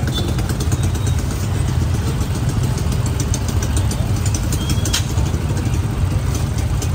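Motorbike and car engines running in steady street traffic, with a run of quick, sharp knocks from a cleaver chopping roasted meat on a chopping block.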